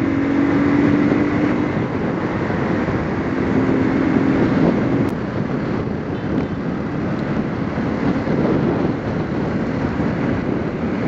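Hero Xtreme 200R single-cylinder motorcycle cruising steadily at about 55–60 km/h: engine hum and road noise under steady wind rush on the microphone.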